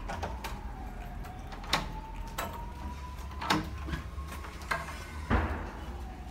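Metal bolt and latch clicking and knocking as old wooden double doors are unfastened and pushed open, with the loudest thump about five seconds in. Underneath, a faint siren slowly wails up and down.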